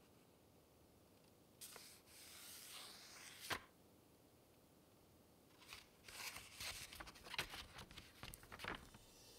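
Paper rustling and crinkling as a letter is handled and unfolded. A soft rustle about two seconds in ends in a sharp crackle, then a run of quick crinkles follows from about six seconds in.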